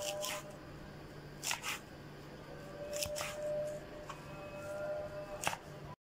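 Fresh herb leaves being handled and picked over by hand: a series of short, crisp rustles, a second or so apart.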